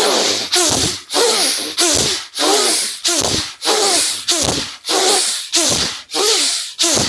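Bhastrika pranayama (bellows breath): forceful, rapid in-and-out breaths that rush loudly at an even rhythm of about two strokes a second.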